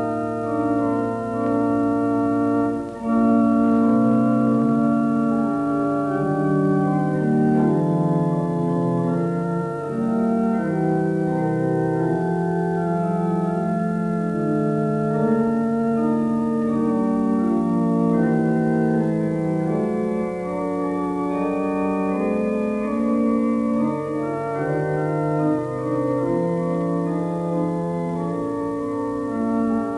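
Organ music: slow sustained chords of held notes moving from one to the next, coming in louder about three seconds in.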